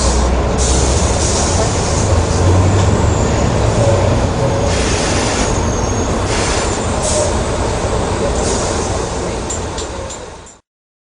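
Volvo B12M bus's DH12 six-cylinder diesel engine running while the bus is under way: a steady low drone with scattered rattles and squeaks on top, fading and cutting off about ten and a half seconds in.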